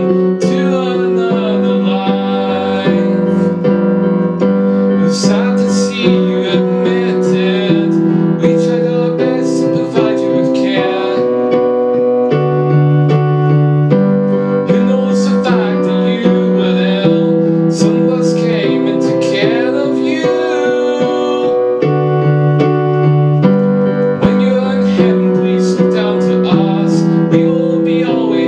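Digital keyboard played with a piano sound: an instrumental passage of held chords over bass notes that shift every second or two, with a few quick bright note runs on top.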